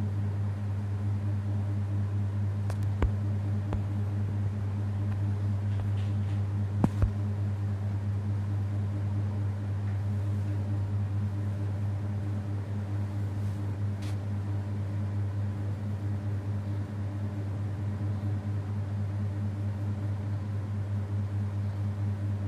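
A steady low hum, with a few sharp clicks around three and seven seconds in.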